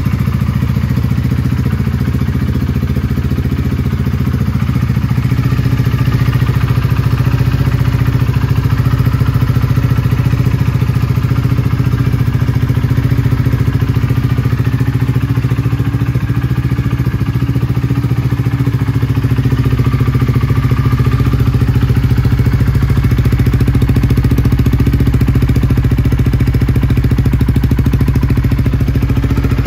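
Honda CBR125R's single-cylinder four-stroke engine idling steadily through a full Scorpion aftermarket exhaust.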